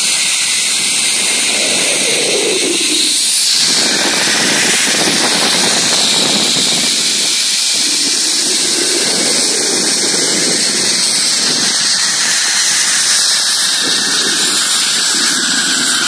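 Steady rushing hiss of a zip-line ride: the trolley's pulleys running along the steel cable, with wind rushing over the phone's microphone.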